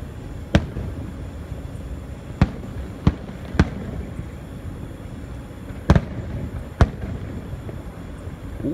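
Aerial firework shells bursting overhead: about six sharp booms, irregularly spaced a second or two apart, over a steady low background noise.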